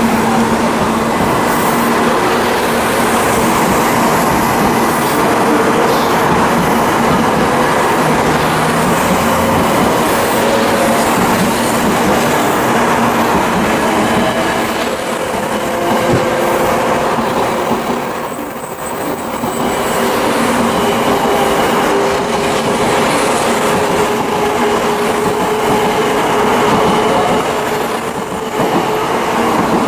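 A 700 series Shinkansen train pulling out and running past close by: a steady loud rush of wheels on rail with a faint hum from the drive underneath. The sound dips briefly twice.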